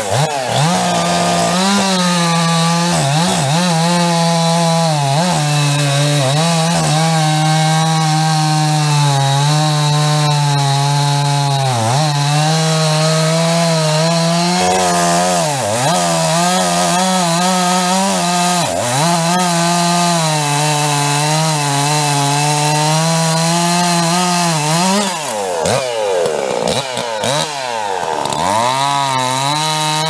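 Chainsaw held at full throttle while cutting into the base of a standing tree, its engine note sagging and recovering every second or two as the chain bites into the wood.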